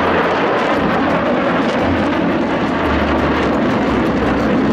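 Jet aircraft flying past overhead: a loud, steady rushing engine noise.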